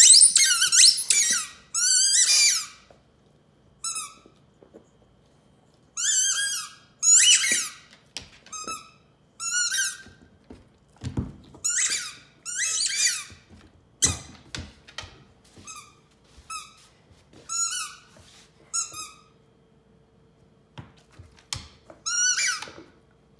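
A squeaky rubber duck toy squeaking in irregular bursts as a Newfoundland dog chews and bites it, some squeezes drawn out and some single short squeaks. A couple of dull thumps come midway.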